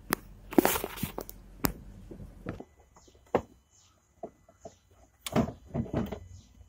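Clunks and knocks from a car's door and body panels being handled, with a burst of rustling about a second in. A low background hum stops suddenly about two and a half seconds in, leaving a string of separate knocks.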